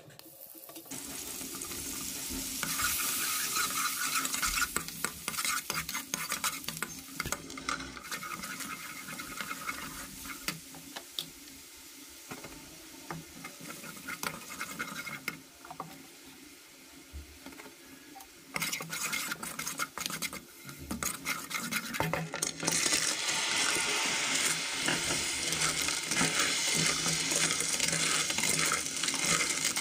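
Butter and then an orange spice paste sizzling in a pan while a spatula stirs and scrapes against it, with many small scraping ticks. The sizzle drops in the middle and grows louder again. Near the end, clams in their shells are stirred in the pan.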